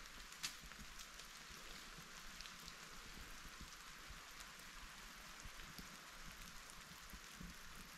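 Faint steady hiss of water in snowy woods, with scattered light drip-like ticks and one sharper click about half a second in.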